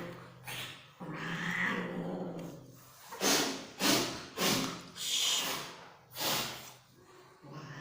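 Mating cats: a low, drawn-out growl lasting about a second and a half, followed by a run of five short, noisy bursts.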